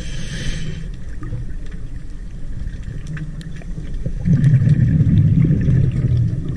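Underwater noise picked up through a dive camera's housing: a low rumble with a brief hiss at the start and scattered faint clicks. The rumble swells louder about four seconds in for around two seconds.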